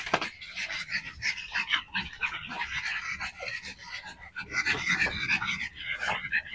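A pack of small dogs, dachshunds and a pug, play-fighting at close quarters, panting, with quick irregular scuffling sounds.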